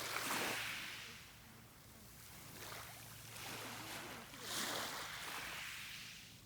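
Sea waves washing onto the shore, two surges of hiss, one at the start and a stronger one about four and a half seconds in, over a low steady hum.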